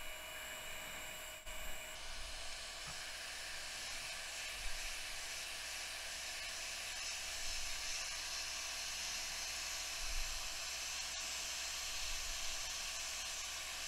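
Hot air rework station blowing a steady hiss over a logic board, the hiss getting brighter about two seconds in.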